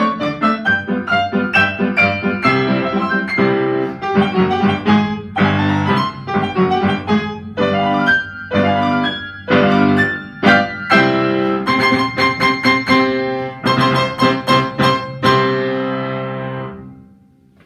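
Upright piano played four hands: a fast galop in quick struck chords, closing with a run of loud rapid chords and a final held chord that dies away near the end.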